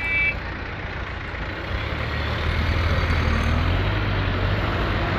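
Heavily loaded dump truck's diesel engine running under load, a low steady drone that builds over the first couple of seconds and then holds.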